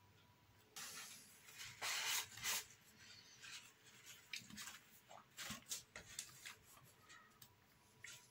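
Hands pressing and rubbing over thin wooden model parts on a baseboard. Scraping rubs begin about a second in and are loudest a couple of seconds in, then light clicks and brushes follow.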